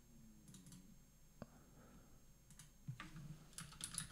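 Faint computer mouse clicks and keyboard typing: a few scattered clicks, then a quick run of keystrokes near the end.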